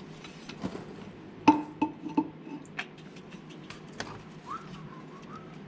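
Scattered metallic clinks and taps of hand tools and small steel parts being handled, the loudest about one and a half seconds in with a short ringing after it.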